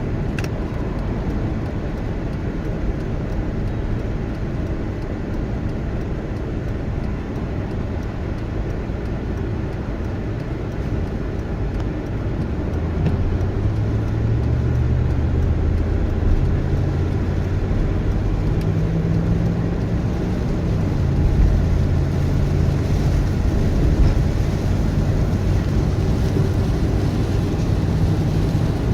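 A car driving: steady road and engine noise, with a low engine hum that comes up about halfway through and changes pitch a little later.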